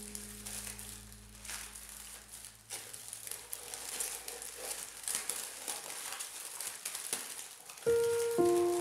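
Honeycomb kraft paper packing wrap rustling and crinkling as it is handled and lifted out of a cardboard box. Background music fades out in the first few seconds and comes back in near the end, louder than the paper.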